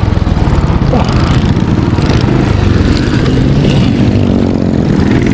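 Motorcycle engine running at low revs right under the microphone, its note rising and falling as the throttle is worked, with other motorcycles running close by.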